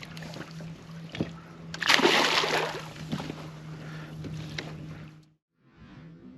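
Water splashing at the side of a boat, loudest about two seconds in, as a hooked fish is brought to the landing net. A steady low hum runs underneath until the sound cuts off a little past five seconds.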